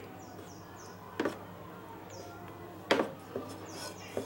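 A utensil knocking against a bowl while a thick batter is being mixed: three sharp knocks, irregularly spaced.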